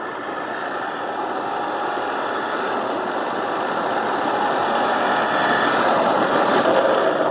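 Remote-control model car driving on a road surface, its electric drive and small tyres making a steady rushing noise that grows gradually louder as it comes closer.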